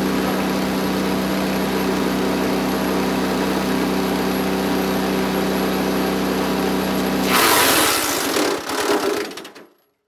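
Small gas engine of a Landworks compact wood chipper running steadily at speed. About seven seconds in, a loud burst of grinding comes as a branch is fed into the chute. The engine then slows in fading pulses and dies out, stalled by the load, going quiet just before the end.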